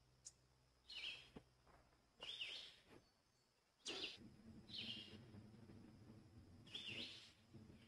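A small songbird calling: a short, high, downward-hooked call repeated five times, one every second or two, faint over a low background rumble.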